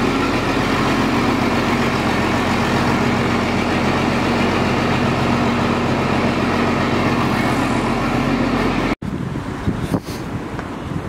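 John Deere 4430's six-cylinder diesel idling steadily just after a hard cold start on ether, running rich. About nine seconds in it cuts off abruptly, leaving wind on the microphone outdoors.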